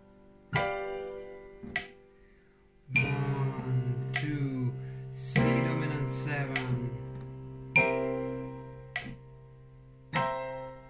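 Casio Privia digital piano playing a chord exercise: full chords struck about every two and a half seconds, each left to ring and fade, with a busier run of notes in the middle.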